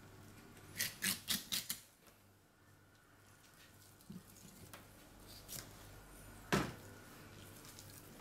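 Filleting knife scraping along a spotted mackerel's backbone in a quick run of four or five short strokes about a second in, then one stronger stroke near the end as the fillet is cut free.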